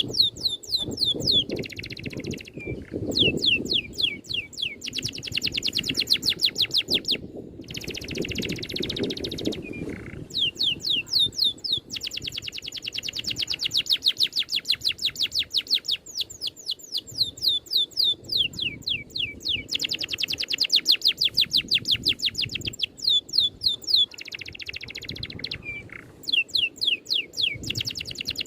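Songbird masteran recording: a dense rolling song of rapid downward-sweeping high whistles, about eight to ten a second. The song comes in long runs broken by brief pauses and buzzy trilled passages.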